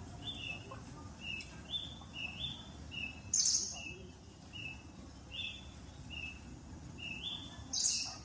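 A bird calling over and over: a short chirp that steps up in pitch, repeated a few times a second. Two brief, louder hissing sounds come about three seconds in and again near the end.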